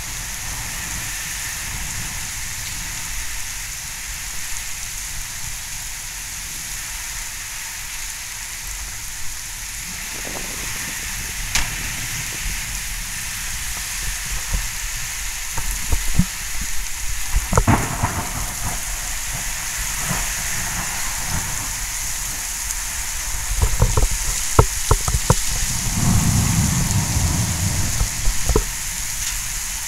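Heavy thunderstorm rain falling steadily as a dense hiss. Scattered sharp knocks sound through it, with a quick run of them about three quarters of the way in, followed by a brief low rumble near the end.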